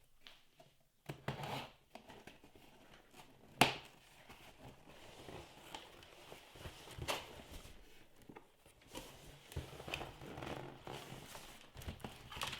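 A cardboard shipping box being opened by hand: tape tearing and cardboard and packing paper rustling and scraping in short irregular bursts, with one sharp snap about three and a half seconds in.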